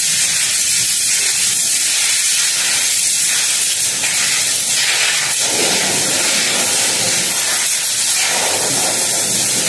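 Loud, steady hiss of compressed air from a pneumatic ratchet and its air hose, used to run in the freshly refitted oil drain plug.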